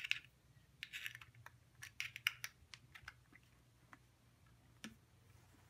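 Light plastic clicks and scrapes as a USB keyboard's plug and cable are pushed into a hub port and handled. They come in small clusters about a second apart, with a few single ticks after.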